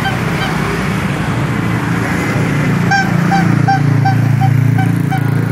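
Motorcycle engine running steadily while riding in traffic, with a repeated short high-pitched chirp about two to three times a second that grows louder about three seconds in.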